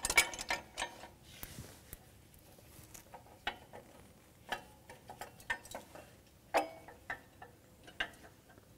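Irregular metal clicks and knocks of a load cell linkage being handled and seated on its pivot in a Case IH 2000 Series planter row unit. The loudest knocks come just after the start and about six and a half seconds in.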